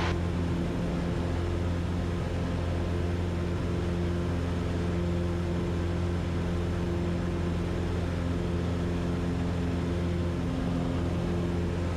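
Cessna 150's four-cylinder Continental O-200 engine and propeller running steadily at full throttle in the climb-out after a go-around, an even, unchanging drone.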